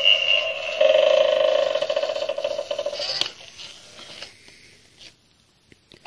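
Animated eyeball doorbell prop's small built-in speaker playing one of its sound clips, a buzzy, pulsing electronic sound, which stops with a sharp click a little after three seconds in and fades to near silence.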